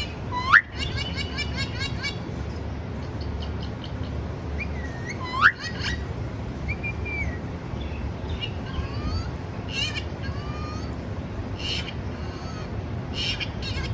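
Parrot chirping in many short, rapid calls, with two loud, sharply rising whistles, one about half a second in and one about five and a half seconds in.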